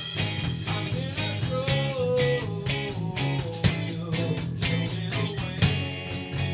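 Live rock band playing: electric guitars, electric bass and a drum kit, with a steady drum beat.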